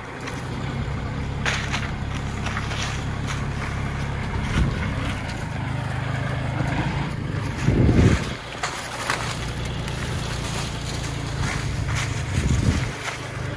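Kubota L4018 diesel tractor engine running steadily, with scattered crackles and snaps over it and a loud low thump about eight seconds in.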